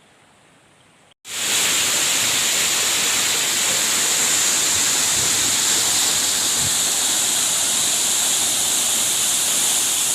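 Waterfall pouring: a loud, steady rush of falling water that cuts in suddenly about a second in, after a faint hiss.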